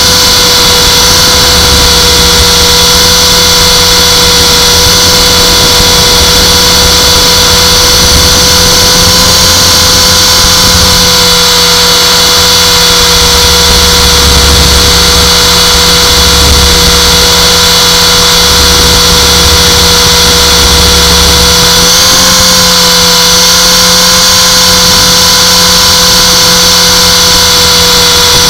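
Align T-Rex 450 electric RC helicopter in flight, its brushless motor and rotor head giving a loud, steady high-pitched whine that lifts briefly in pitch about 22 seconds in.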